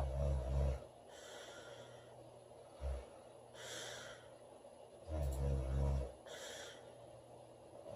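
A girl snoring in her sleep: two deep rattling snores about five seconds apart, each followed by a breathy exhale, with a short snort about three seconds in.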